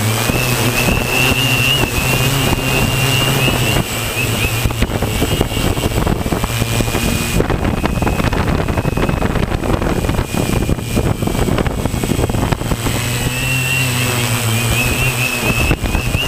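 Multirotor drone's electric motors and propellers whirring, heard through its onboard camera: a high, wavering whine over a low hum, with wind buffeting the microphone. The whine sinks under the buffeting in the middle and comes back strongly a few seconds before the end.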